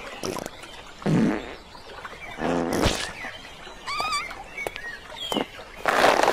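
Cartoon fart sound effects: two short, low blurts about a second and a half apart. A bird's warbling chirp follows, and a loud rush of noise comes near the end.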